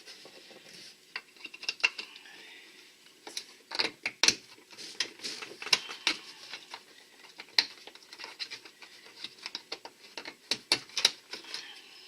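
Irregular sharp clicks and short scrapes of hand work on hard plastic, as the excess plastic rod of a kayak transducer mount is cut off and the parts handled.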